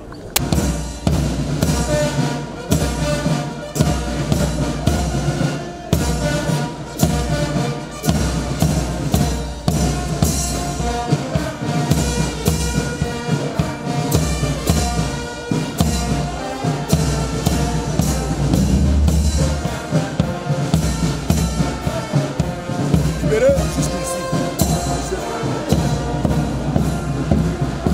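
Brass band music with drums keeping a steady beat, starting abruptly at the outset.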